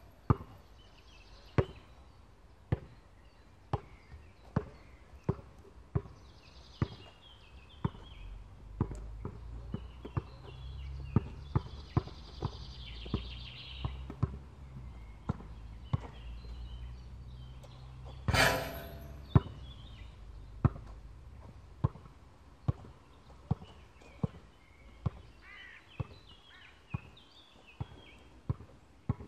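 A basketball bouncing on an outdoor hard court, a sharp knock about once a second that comes faster later as it is dribbled. About eighteen seconds in, the ball strikes the hoop with one loud bang with a short ringing.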